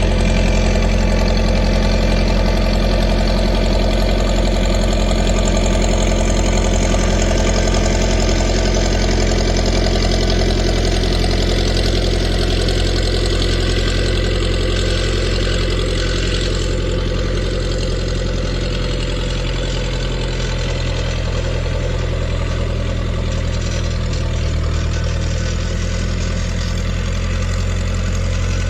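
An engine running steadily, with a small shift in its low note about two-thirds of the way through.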